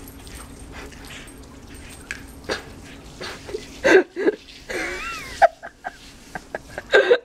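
A dog giving a string of short, excited cries with rising and falling pitch, several close together from about four seconds in.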